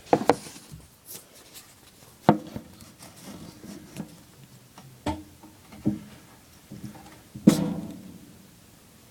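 Several separate knocks and taps with a short ring after each, spaced irregularly, the loudest about seven and a half seconds in.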